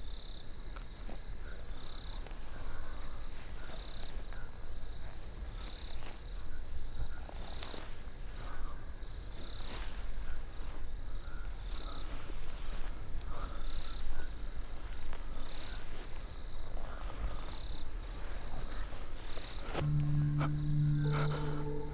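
Crickets chirping in repeated short pulsed trills over a low rumble, with a few sharp clicks. A low, sustained music tone comes in near the end.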